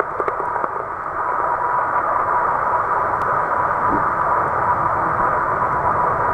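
Steady muffled rushing of water in a tide pool with the tide coming in, heard from a camera held underwater, with a faint steady tone and a few small clicks near the start.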